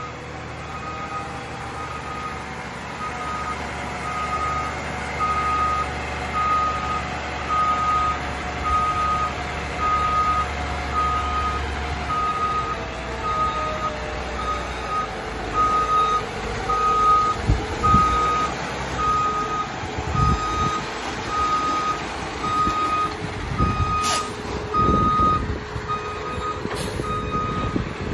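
Garbage truck's backup alarm beeping steadily at about one beep a second while the truck reverses, over the truck running. Several heavy knocks come in the second half, with two sharp clicks near the end.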